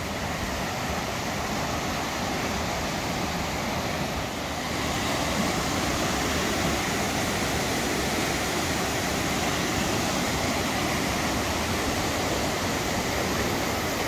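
Rushing water of a mountain stream tumbling over a series of small waterfalls, a steady noise of white water that grows a little louder and brighter about four and a half seconds in.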